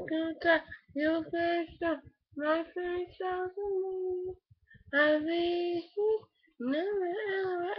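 A girl singing a pop song, unaccompanied, in short phrases with brief breaths between them.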